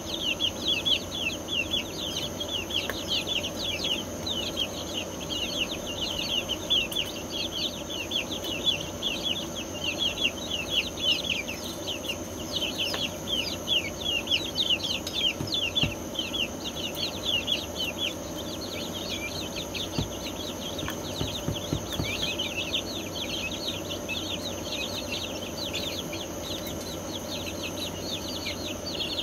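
A brood of young chicks peeping continuously, many short falling peeps overlapping, over a faint steady hum.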